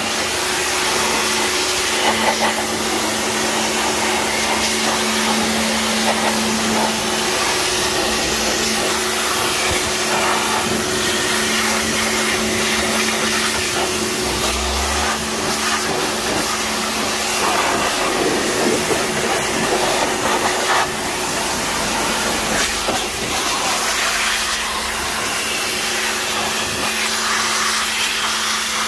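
Pressure washer running steadily: its motor hums under the hiss of the high-pressure water jet spraying over the engine and the metal of the engine bay.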